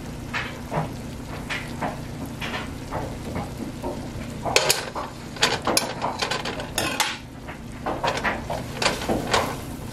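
A silicone whisk and a table knife stirring and scraping softened cream cheese and melting butter in a metal pot, with irregular clicks and scrapes of the utensils against the pot and each other, over a low sizzle of the melting butter.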